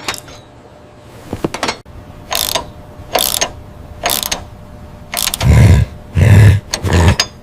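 Repeated mechanical ratcheting strokes: a few light clicks, then evenly spaced strokes that turn heavier from about five and a half seconds in, each with a deep thud, about one and a half a second.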